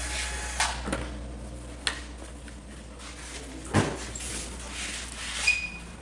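A few scattered sharp clicks and knocks of small tools and model parts being handled on a workbench, over a low steady hum. The loudest knock comes about two thirds of the way through.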